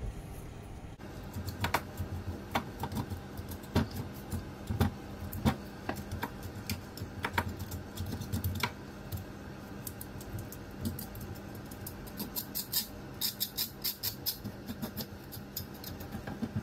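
Knife scraping and cutting at a needlefish on a board in a metal sink: irregular sharp clicks and scrapes. A steady low hum comes in about a second in.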